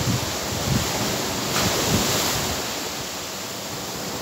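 Sea surf breaking and washing against a seawall, a steady rush with a louder surge about a second and a half in, and wind buffeting the microphone.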